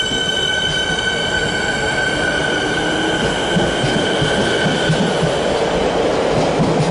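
Electric suburban passenger train pulling out of a station platform and gathering speed. A steady high whine fades out about five seconds in, while the rumble of the wheels on the rails builds.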